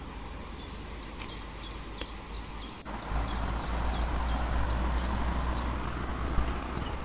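Waterfall rushing steadily, its noise growing abruptly louder and fuller about three seconds in. Over it a songbird sings a quick run of a dozen or so short, high, falling notes, about three a second, for some four seconds.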